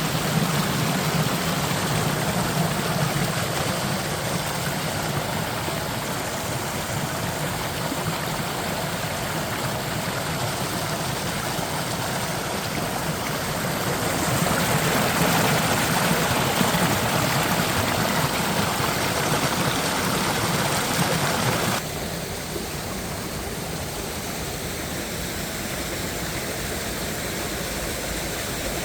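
Mountain stream rushing and splashing over rocks in a mossy valley, a steady hiss of water. It grows louder about halfway through, then drops abruptly to a softer rush near the three-quarter mark.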